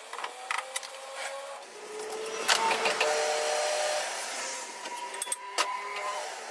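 Metal-workshop machinery running, with steady squealing tones, scattered sharp clicks and knocks, and a louder rough noisy stretch for about a second and a half around the middle.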